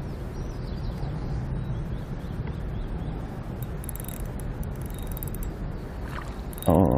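Spinning reel cranked steadily as a lure is retrieved, under a steady low rumble. Near the end a sudden loud, rough noise starts.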